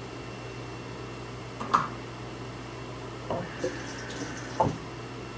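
A little water poured into a pan of marinated beef steak, with a few short knocks over a steady low hum.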